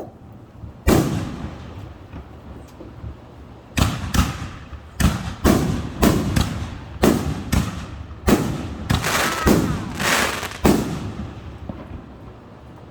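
Fireworks exploding: a single bang about a second in, then a rapid volley of about a dozen loud bangs that stops about two seconds before the end.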